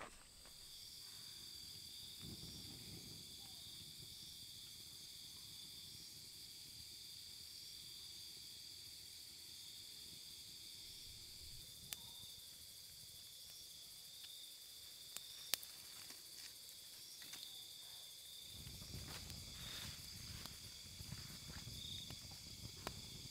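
Crickets chirring steadily at night, a faint, high, even drone, with two sharp clicks in the middle. In the last few seconds the low, rough sound of a campfire burning joins in.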